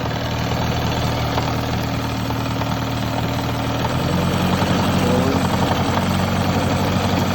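Mercury 9.9 outboard motor running steadily; about four seconds in its note changes and it grows a little louder. The motor runs but the propeller will not turn in forward or reverse, a fault in the lower-unit drive.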